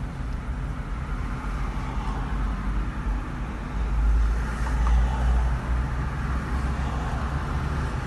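Toyota car idling, heard from inside the cabin, with road traffic outside; a deeper rumble swells for about a second and a half about four seconds in.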